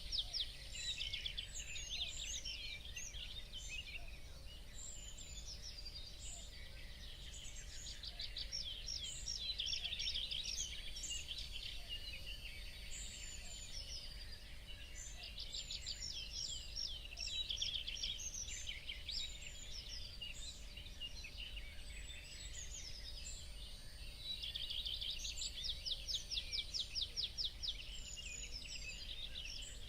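Several small songbirds chirping and singing together, with four bursts of fast, evenly repeated notes among scattered chirps, over a steady low background rumble.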